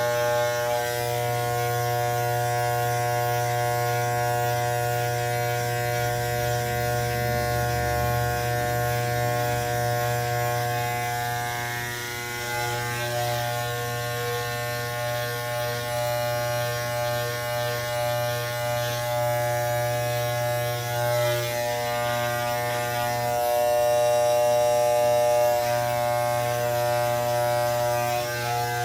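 Electric hair clippers running with a steady buzz as they cut hair, the tone dipping and swelling slightly as they move.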